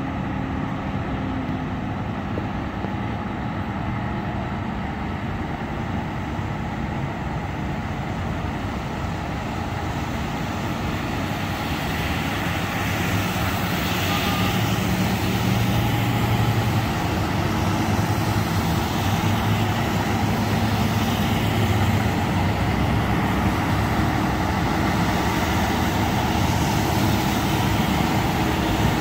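Road traffic driving through floodwater: steady engine noise and the hiss of tyres through standing water. It grows louder a little under halfway through.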